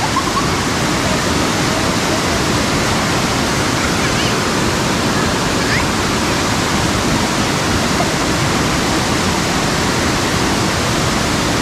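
Waterfall pouring, a loud steady rush of water.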